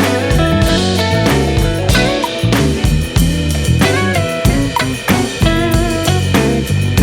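Background rock-style music with a full drum kit, bass and guitar.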